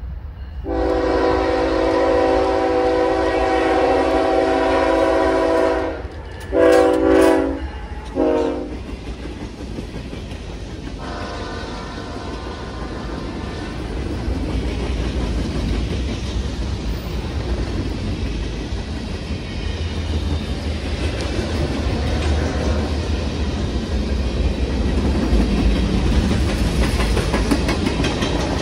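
Freight locomotive's multi-chime air horn sounding one long blast, then shorter blasts, then a fainter blast. After it, a freight train of covered hopper cars rolls past close by, with steady wheel-on-rail rumble and clatter that grows louder.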